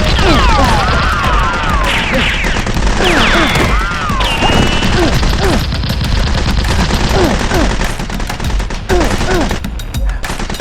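Rapid, continuous gunfire sound effects, like machine-gun fire, mixed with repeated falling whistle-like tones in the first half; the firing thins out near the end.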